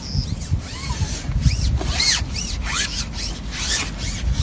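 Spinning reel being wound, winding in the line of a groundbait cup: a rasping whir with repeated short, high, rising-and-falling chirps over a low rumble.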